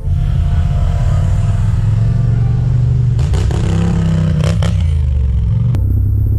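Several ATV engines running close by as a side-by-side and then a quad drive past; about four seconds in the quad passes right beside the microphone with a clatter and a falling pitch. The sound changes abruptly near the end.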